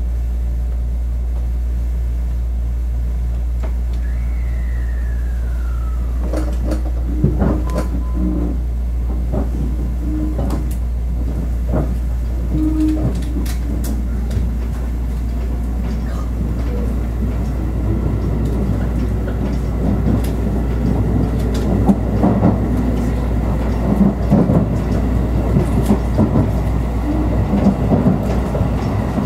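Electric commuter train pulling away from a station, heard from inside the carriage. A steady low hum and a short falling whine come first; from about six seconds in, wheel clicks over rail joints and a rumble build up as the train gathers speed.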